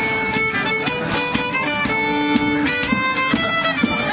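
Fiddle tune played up close with a bow: a quick run of notes, a few of them held a little longer.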